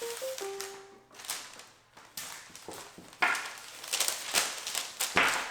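A few soft musical notes fade out in the first second, then intermittent rustling and crinkling, typical of handling wrapping paper and packaging while unpacking an order, with the loudest bursts about three and five seconds in.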